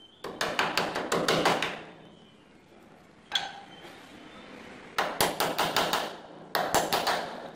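Small hammer striking a wooden handrail joint in quick runs of taps: a fast run of about eight blows, a single blow a little over three seconds in, then two more fast runs near the end.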